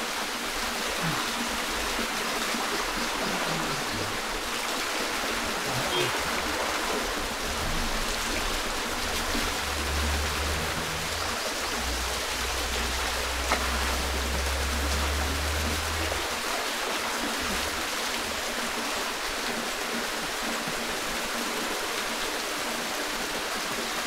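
Small waterfall pouring into a shallow rocky pool: a steady, even rush and splash of falling water.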